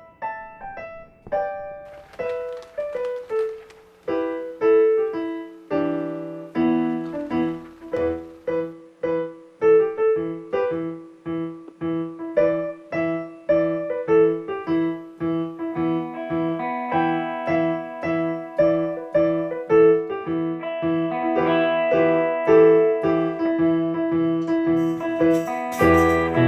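Background piano music: a slow falling line of single notes, then steady repeated notes and chords about two a second, growing fuller and louder.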